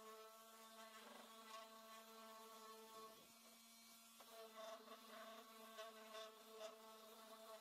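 Makita random orbital sander running on pine boards: a faint, steady buzzing hum that dips briefly about three seconds in, then comes back.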